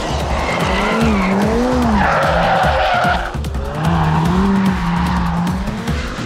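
Ferrari F8 Tributo drifting through a bend, its tyres squealing as it slides, loudest about two to three seconds in. Music with a steady beat runs underneath.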